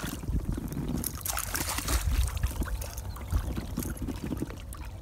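A hooked bass splashing and thrashing at the water's surface beside the boat, loudest about a second and a half in.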